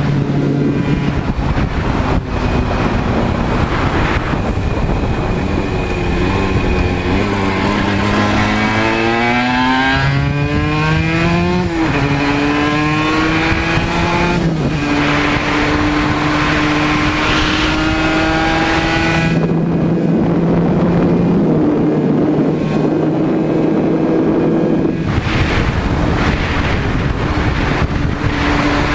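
Aprilia RS125's single-cylinder 125 cc two-stroke engine at full throttle, its pitch climbing steeply and dropping back at each gear change. For a few seconds past the middle it eases off, then pulls hard again near the end.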